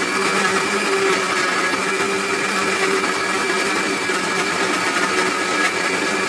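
Countertop blender running steadily at speed, churning frozen banana chunks with thick sweetened coconut milk into a soft ice-cream mixture.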